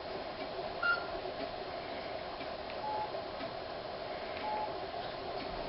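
Phone keypad beeps as a number is dialed: three short, separate tones spaced well apart, over a steady background hiss.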